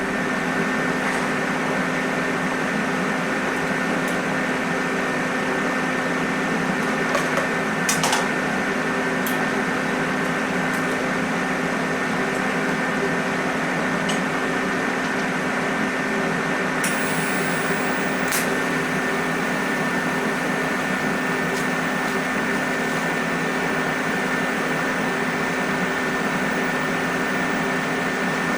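Steady machine hum in a small workshop, holding one unchanging pitch, with a few light clicks or taps about 4, 8 and 17 seconds in.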